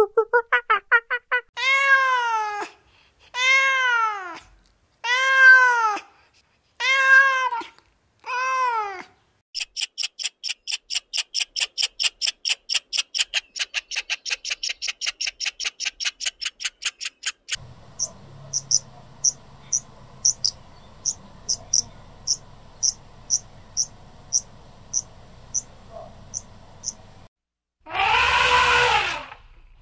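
A sequence of animal calls. First come six separate cries about one and a half seconds apart, each rising then falling in pitch. Then a squirrel gives a fast, even chatter of high chirps, about six a second, for some eight seconds, followed by sparser high chirps over a faint steady hum, and a loud harsh call near the end.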